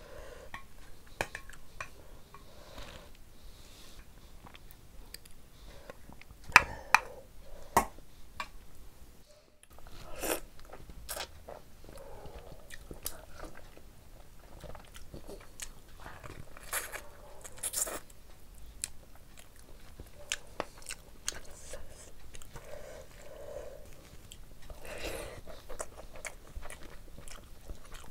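Close-miked eating: a person biting and chewing chicken curry and rice, with many sharp mouth clicks and smacks and a few louder clicks about seven seconds in.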